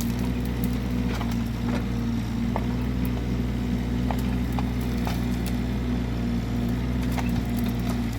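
Engine of a digging machine running steadily at an even pitch, with light knocks now and then.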